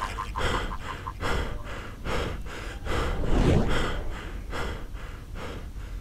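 Rapid, heavy breathing: short noisy breaths at an even pace, about two a second.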